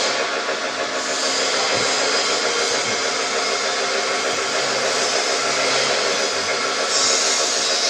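Tobacco processing machinery running, a steady rushing noise like blowing air, unbroken throughout and a little brighter near the end.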